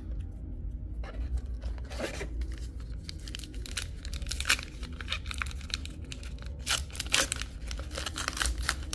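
A trading-card booster pack wrapper being torn open and crinkled: an irregular run of rips and crackles starting about a second in.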